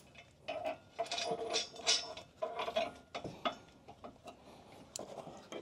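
Towbar mounting hardware being fitted by hand: nuts, washers and spacers clicking and scraping against the steel bolts and brackets, an irregular string of small metallic clicks with a little ringing in the first few seconds.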